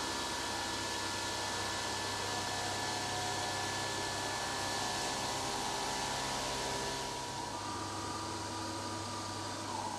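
Stone-cutting CNC machine running, its spindle whining steadily through the hiss of coolant water spraying onto a stone worktop as it cuts a recessed drainer. It drops slightly in level a few seconds before the end.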